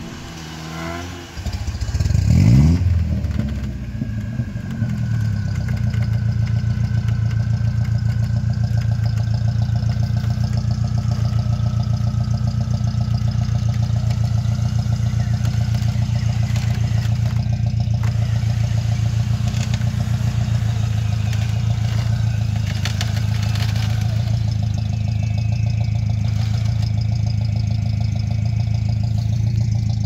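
Chevrolet Niva's four-cylinder petrol engine revving up about two seconds in, then held at high, steady revs as the car churns along deep mud ruts and gets bogged down.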